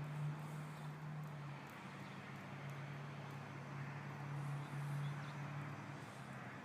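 A steady low motor hum over a haze of outdoor background noise.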